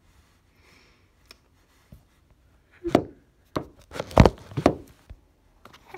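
Near silence, then from about halfway a run of five or six sharp knocks and bumps as a vinyl record in its sleeve and its cardboard mailer are handled and knocked about close to the microphone.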